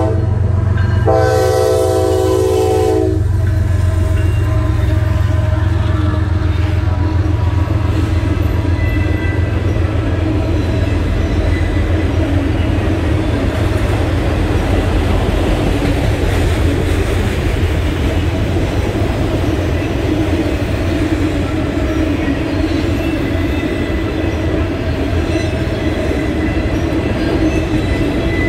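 CSX freight train passing close by: the lead diesel locomotives sound their air horn in one blast of about two seconds, starting about a second in, over the low rumble of the diesel engines. A long string of autorack cars then rolls past with a steady rumble of wheels on rail.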